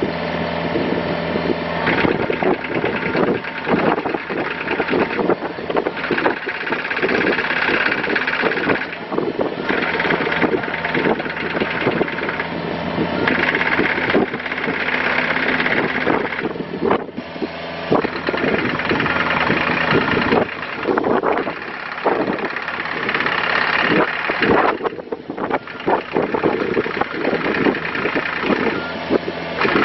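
John Deere 50D mini excavator's diesel engine running as the machine is worked, with a whine that comes and goes every few seconds and frequent clanks and rattles.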